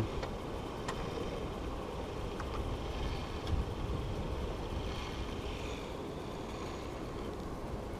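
Steady wind rumble and sea noise aboard a small outrigger boat, with a few faint clicks.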